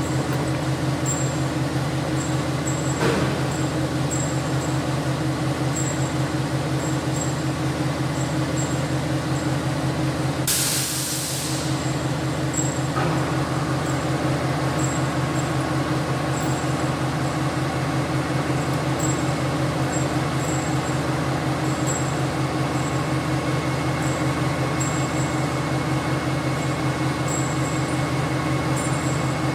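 Horizontal band saw running with a steady low hum and a fast even pulsing. About ten seconds in comes a one-second burst of compressed-air hiss from the pneumatic clamp's air system, and from about thirteen seconds a thin steady whine joins the hum.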